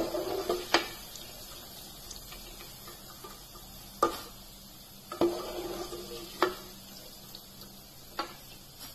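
Split chana dal sizzling as it deep-fries in hot oil, stirred with a perforated metal ladle that knocks and scrapes against the pan about six times.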